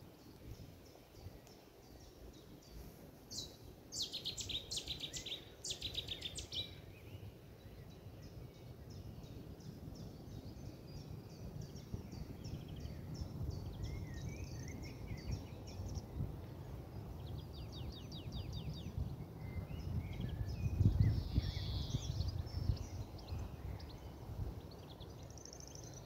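Cetti's warbler singing loud bursts of rapidly repeated notes, a few seconds in and again more briefly later, among softer chirps of other small birds. A low rumble runs underneath and swells near the end.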